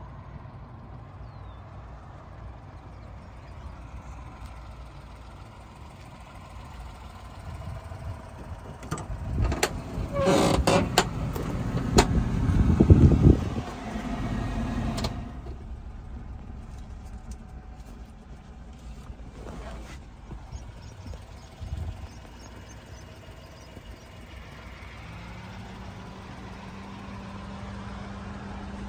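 Honda Acty kei truck's small three-cylinder engine idling with a steady low rumble. About ten seconds in there are several seconds of loud knocks and clatter, and a steady low hum joins the idle near the end.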